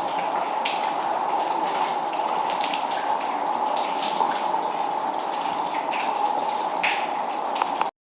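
Water running steadily inside a limestone cave, with many drips and small splashes on top of the rush; it cuts off abruptly near the end.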